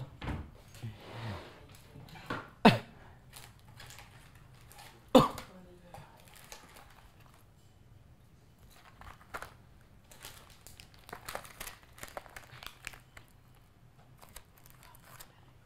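Plastic snack wrapper crinkling as it is handled and torn open, with a scatter of crackles in the second half and two sharp, loud snaps about three and five seconds in.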